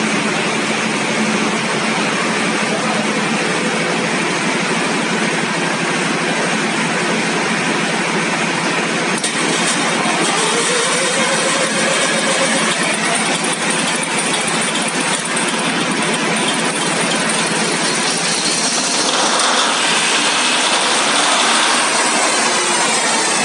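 Deutz 620-series V12 engine running steadily, a loud, even sound, growing a little louder near the end.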